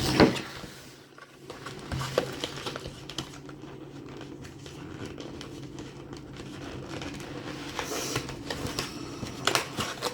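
Cardboard box flaps being folded and tucked into the corners of a lid: rustling and creasing of card, with scattered light taps and clicks, the loudest at the very start and near the end.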